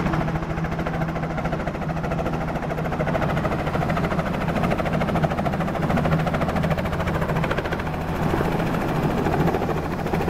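Light helicopter with a two-blade main rotor running: a loud, steady engine drone with the rapid, even beat of the rotor blades.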